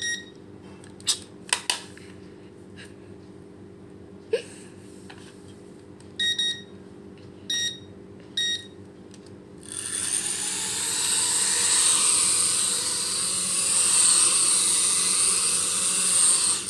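A few short electronic beeps and some sharp clicks from the toy drone and its handheld remote. About ten seconds in, the toy quadcopter's four propeller motors start up with a high, even whirr that swells for a couple of seconds and then holds.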